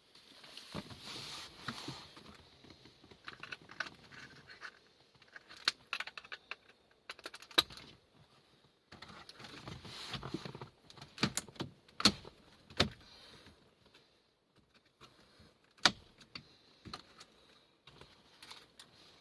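Plastic dashboard trim and wiring harnesses being handled and fitted inside a car: rustling with irregular sharp clicks and knocks, a few louder snaps standing out.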